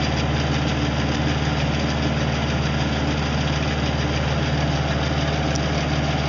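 Tractor engine running at a steady speed while powering a boom-mounted brush trimmer: an even mechanical drone with a constant hiss over it.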